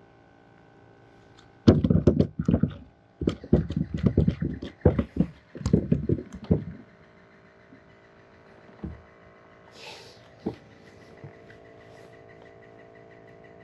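A burst of irregular knocks, bumps and rubbing for about five seconds, then a few single taps, over a faint steady hum: close handling noise while a freshly caught fish is dealt with.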